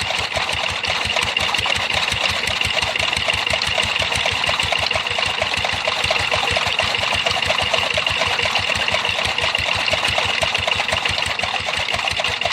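A small engine running steadily at a constant speed, with a rapid, even knocking beat.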